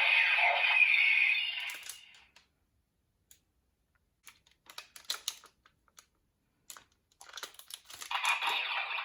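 Loud music fades out in the first two seconds. Then come light clicks and crinkling from folded paper being handled, and about seven seconds in a loud burst of music-like sound returns and cuts off suddenly.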